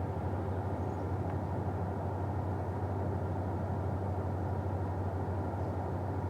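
Kia Seltos engine idling steadily, with an even low pulsing hum.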